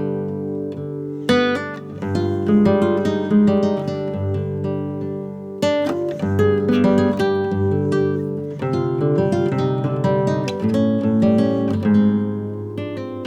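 Background music: acoustic guitar plucking and strumming chords.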